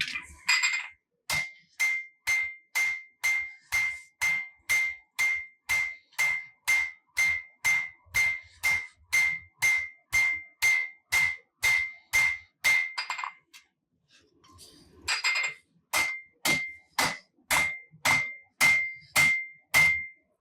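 Hammer blows on a hot Damascus steel billet over an anvil, drawing the steel out: steady rhythmic strikes, about two and a half a second, each with a ringing metallic ping. The blows stop for a moment past the middle, then resume.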